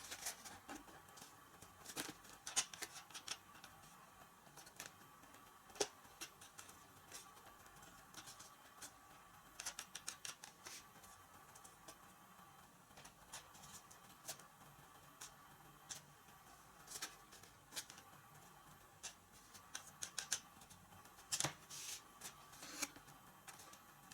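Scattered light clicks and taps of small plastic and foam parts being handled and fitted together by hand, coming in irregular clusters.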